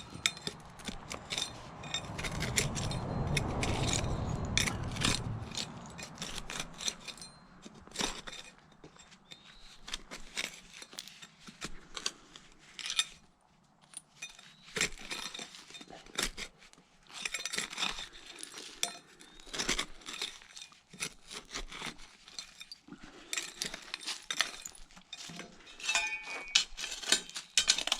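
Digging in dry ground full of broken glass: a digging tool scraping through soil and clinking against glass bottles and shards, in many short knocks, clinks and scrapes. A low rumbling noise is louder for a few seconds near the start.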